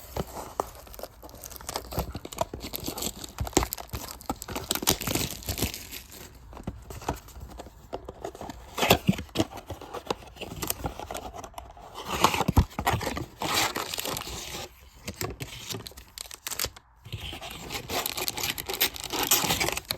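Trading-card packaging being handled and torn open: plastic wrapping and foil packs crinkling and tearing, with sharp rustles and clicks throughout and louder tearing bursts several times.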